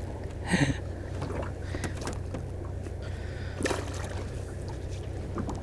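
Sounds aboard a small jon boat on the water: a steady low hum, with two short sharp knocks or splashes, one about half a second in and one near four seconds in.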